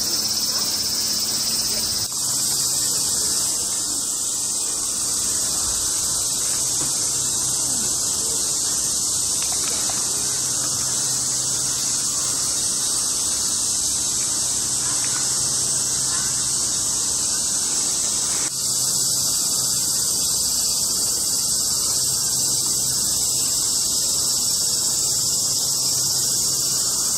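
A dense chorus of cicadas buzzing steadily in a loud, high, sizzling drone that shifts abruptly about two seconds in and again around eighteen seconds. A faint low hum lies underneath.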